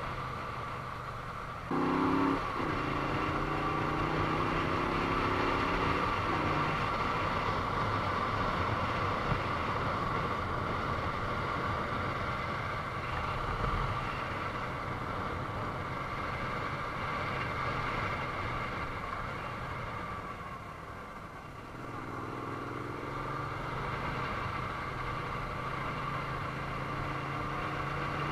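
Moto Guzzi V35's air-cooled V-twin engine pulling the motorcycle along at riding speed. The throttle opens sharply about two seconds in and the revs climb for a few seconds. The engine eases off for a moment around twenty seconds in, then picks up and rises in pitch again near the end.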